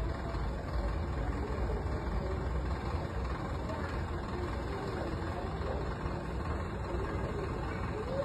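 Steady low rumble of street traffic, with faint distant voices.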